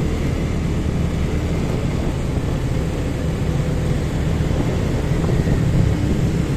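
Steady low rush of wind and road noise from a moving motorcycle, with its engine running underneath.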